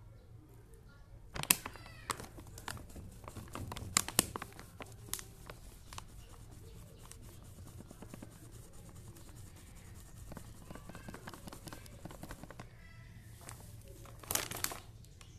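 Kitchen handling sounds: scattered clicks and knocks of a spoon and dishes, with rustling and scraping. The sharpest knocks come about a second and a half and four seconds in, and another cluster comes near the end.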